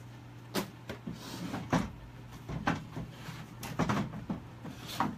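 Irregular hard knocks and clunks, about one a second, over a steady low hum.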